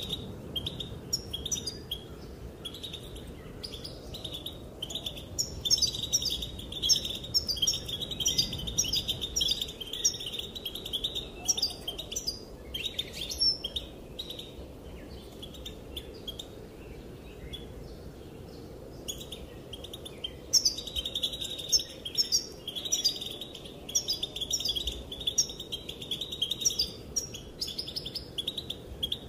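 Female European goldfinch calling: fast, twittering runs of chirps with quick rising notes above them. They come in two long dense bouts, with scattered single chirps between them.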